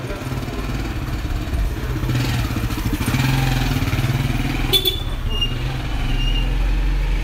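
A motor vehicle engine running close by in street traffic, its note swelling and bending in pitch around the middle, with one sharp click about two-thirds of the way through.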